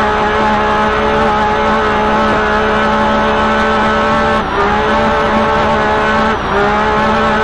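UTV race car engine running at steady high revs, heard from inside the cab along with tyre and wind noise. The engine note dips briefly twice in the second half, then picks back up.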